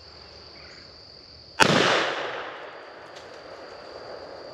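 A single .410 shotgun shot about one and a half seconds in: a sharp report whose echo dies away through the woods over about a second, the shot that drops a squirrel. A steady high insect buzz runs underneath.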